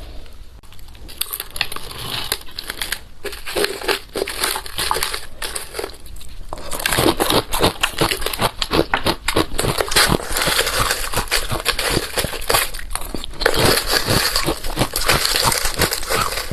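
Balloon ice crackling and crunching in dense, irregular clicks, growing louder and busier about six and a half seconds in.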